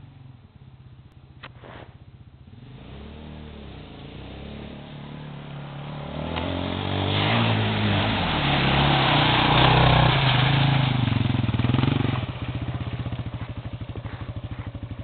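Dirt bike engine approaching and revving up as the bike ploughs through a deep muddy puddle. Loud splashing and spraying water peak while it crosses, then the engine drops back to a lower, steady chug as the bike rolls out onto the muddy trail.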